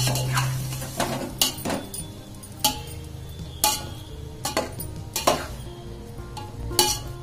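Metal slotted skimmer scraping and knocking against the side and bottom of a metal pot as boiled chickpeas are stirred and fried in oil, with sharp clinks at irregular intervals several times a second or so.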